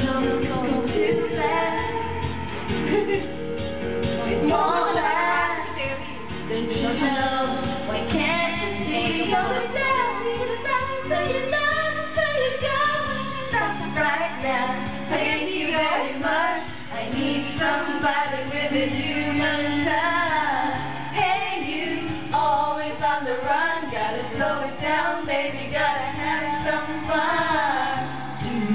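Several women singing together into karaoke microphones over a pop backing track.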